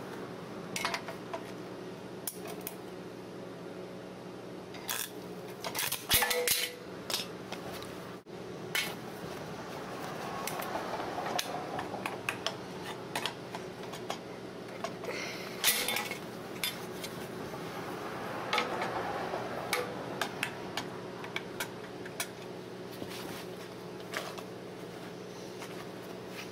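Stick (arc) welding on a steel socket: the arc crackles and sputters unevenly, with sharp pops scattered throughout, over a steady faint hum.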